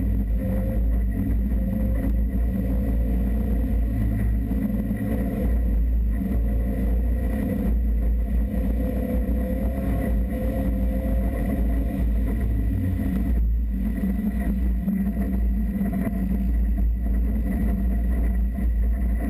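Off-road vehicle driving on a sandy dirt track, engine running steadily under a constant low rumble.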